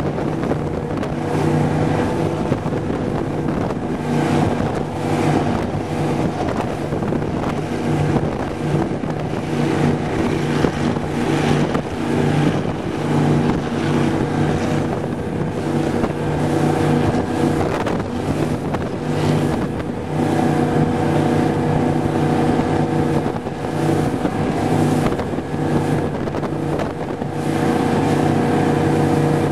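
Raider 26 powerboat's 460 cubic-inch Ford big-block V8 running at speed through a Volvo Penta DPX sterndrive, a steady engine drone with wind buffeting the microphone.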